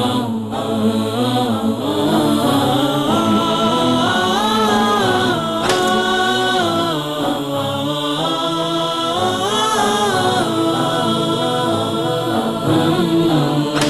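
Melodic vocal chanting: long held notes that glide smoothly up and down between pitches.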